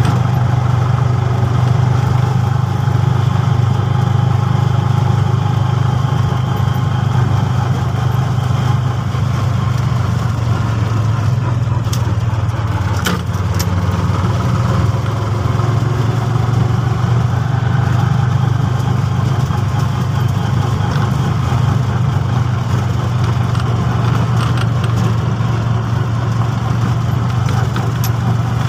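A three-wheeler auto-rickshaw's engine running steadily as it drives along a dirt track, heard from inside the cab. A few sharp clicks or knocks come about halfway through.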